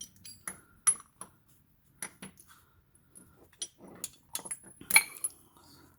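Metal hand tools and parts clinking and tapping: scattered sharp clicks with brief metallic ringing, the loudest about a second in and about five seconds in.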